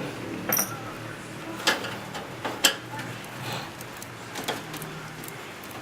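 Scattered light clicks and knocks of hard computer parts being handled while a desktop system unit is taken apart, about five in all, the sharpest about one and a half and two and a half seconds in.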